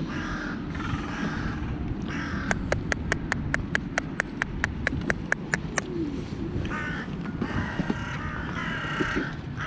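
Crows cawing, a few harsh calls near the start and again in the last few seconds, over a steady low rumble. In the middle, for about three seconds, there is a rapid run of even, sharp ticks, about four a second.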